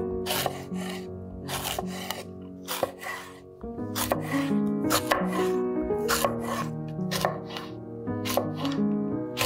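Background music with a steady melody, over irregular sharp knocks of kitchen work, about two a second.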